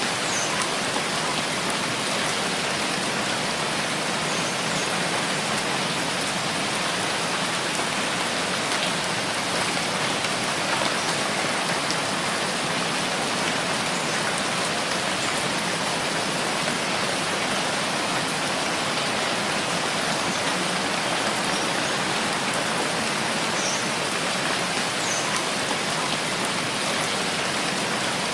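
Steady rainfall, an even hiss of rain on surfaces, with a few faint high chirps now and then.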